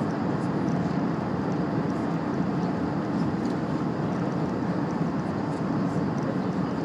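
Steady low rumble of an Airbus A380 heard from inside the passenger cabin: engine and airflow noise, unchanging throughout.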